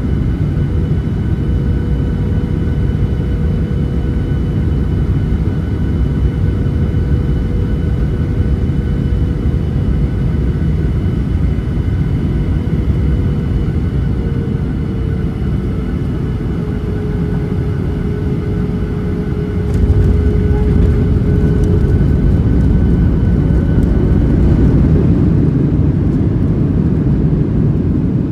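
A Boeing 737-800's CFM56-7B jet engines heard from inside the cabin on final approach: a steady rumble with a thin engine whine that slides down in pitch near the middle. About two-thirds of the way through, the touchdown brings a few clicks and the rumble jumps louder as the thrust reversers deploy.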